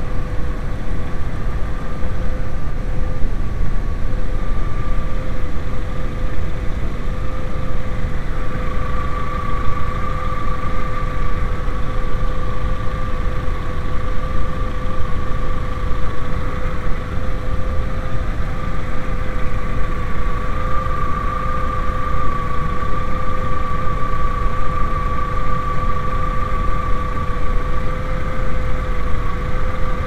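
Steady added noise laid over the soundtrack to mask shop radio music: an unbroken low rumbling hiss with two steady whining tones.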